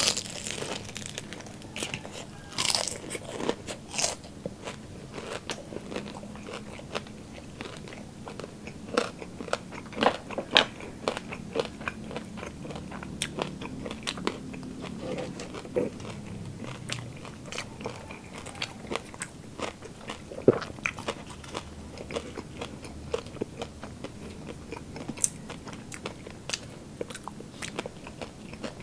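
Crisp crunching and chewing of chicharon bulaklak, deep-fried pork mesentery, as pieces are bitten and chewed, with softer chewing between the crunches. The sharpest crunches come in the first few seconds, with single loud ones about ten and twenty seconds in.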